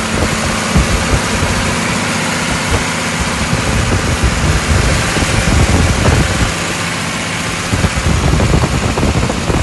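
John Deere 466 six-cylinder diesel engine running steadily.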